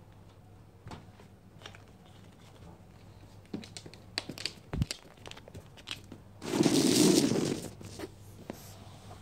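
Fabric bag rustling and crinkling with small scratches and clicks as a kitten scrabbles about inside it. Then comes a louder burst of rustling, about a second and a half long, as a golden retriever pushes into the bag.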